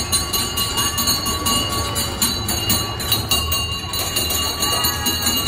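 Kiddie boat ride running: a steady low rumble from the ride's drive machinery and the water churning in its trough, with a faint steady whine above it.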